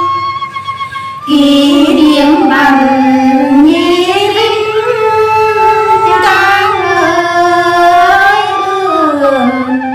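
Female voice singing a Tày phong slư folk song in long, slow, wavering held notes, starting about a second in.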